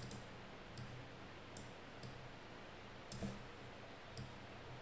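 Faint computer mouse clicks, about five single clicks spaced roughly a second apart, over quiet room tone.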